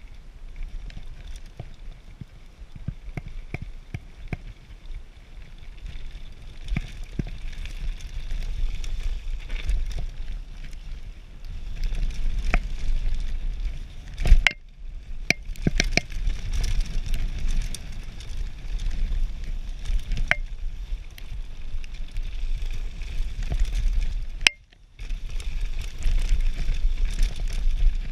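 Radon Slide Carbon enduro mountain bike descending a dirt forest singletrack: a steady low rumble of tyres and riding noise, with sharp clicks and rattles as the bike hits bumps. The noise drops away briefly about halfway through and again near the end.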